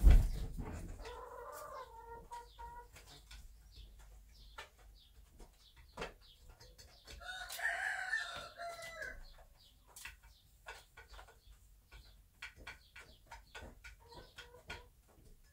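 Chickens calling: two drawn-out calls, one about a second in and a louder one near the middle, with scattered light clicks throughout. A thump at the very start is the loudest sound.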